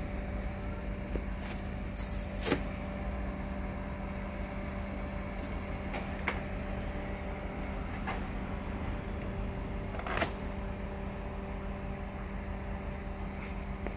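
A steady low electrical hum runs throughout, with a few scattered brief clicks and knocks from the stripped mattress cover being handled, the loudest about ten seconds in.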